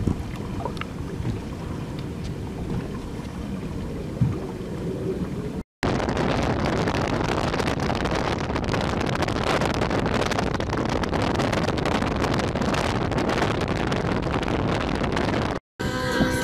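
Wind buffeting the microphone on a boat deck, with a few small clicks. After a cut, a bass boat running across open water: a loud, steady rush of wind and water.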